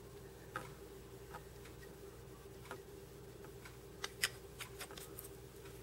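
Light, scattered clicks and taps from handling a small glass bottle of head cement and its brush applicator, the loudest cluster about four seconds in, over a faint steady hum.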